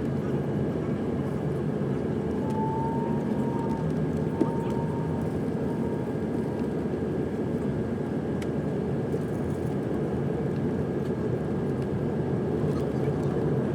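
Steady cabin noise of an Airbus A330 airliner in flight on approach: a constant low rush of engines and airflow heard from a window seat inside the cabin.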